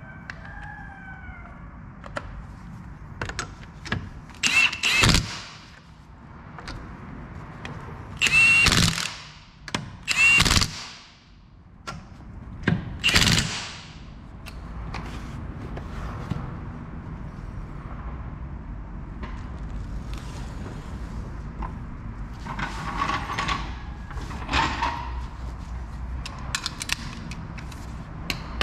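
Cordless impact wrench driving the front wheel bolts of a Fiat 500 in. It runs in four loud short bursts in the first half, then two quieter, shorter ones later.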